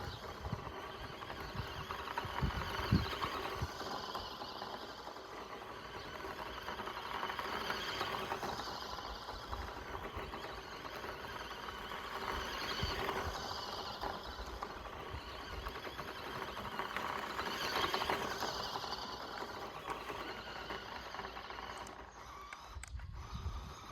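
Radio-controlled 1:14 Audi RS Q e-tron model car driving on dirt: its small electric motor whining and tyres scrabbling over loose ground, swelling and easing every few seconds as it accelerates and slows. Near the end it briefly goes quieter, with a few clicks.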